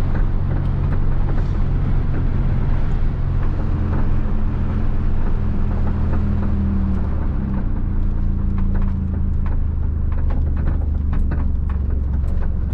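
Car engine running steadily with a low, even hum, with scattered light clicks in the second half.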